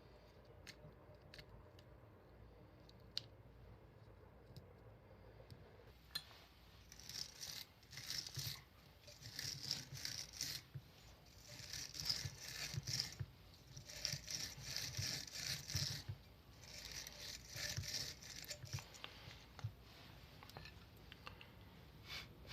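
Hand scrubbing or scraping of a rusty metal part being cleaned, in short back-and-forth strokes about one a second. The strokes start about seven seconds in, after a few light clicks, and die away near the end.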